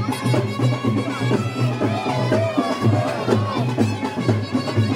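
Festival procession music: a reed wind instrument plays a gliding, wavering melody over a steady, evenly repeated drum beat.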